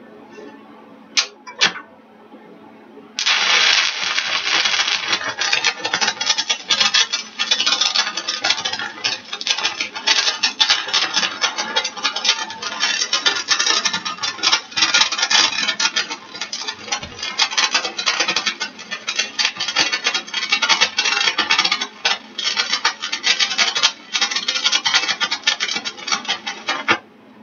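A few sharp ticks, then a stick-welding arc on 1/8-inch 7018 rod at about 126 amps catches about three seconds in and crackles and sputters steadily as it runs a fillet bead. It breaks off briefly twice near the end and stops just before the end.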